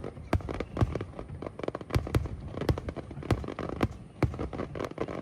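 Fireworks shells bursting in quick succession: an uneven string of sharp bangs, about two a second, each trailing a low rumble, with crackling between them.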